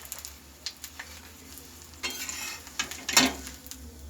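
Pati sapta crepe frying in ghee on a hot iron griddle, sizzling, with a metal spatula scraping and tapping on the pan. The sizzle swells about two seconds in, and a sharp clack from the spatula about three seconds in is the loudest sound.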